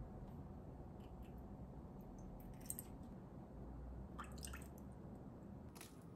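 Faint trickles and drips of liquid poured from a small glass measuring jug into a saucepan, coming in a few short spurts, with one light knock about two and a half seconds in.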